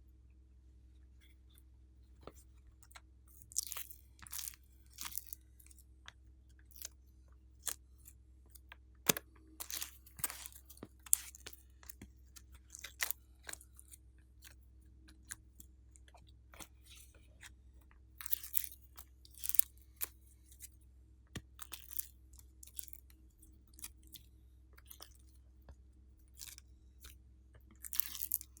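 Slime being squeezed and pressed by hand, giving irregular pops and clicks with short bursts of crackling.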